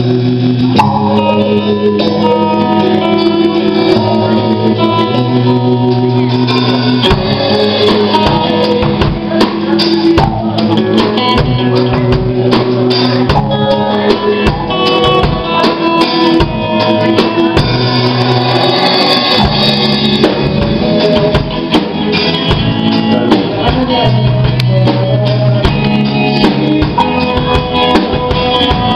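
Live band playing a pop-rock song on electric guitar, bass guitar and drum kit, with steady drum hits.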